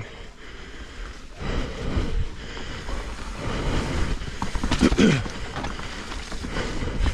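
Mountain bike riding down a wet, muddy trail: tyre noise, knocks and rattles of the bike over the ground, and wind on the microphone. A brief falling tone sounds about five seconds in.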